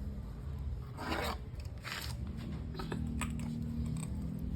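A few short metallic rasps and scrapes of a tool turning a differential's ring gear adjuster nut, tightened a little more to close up the backlash.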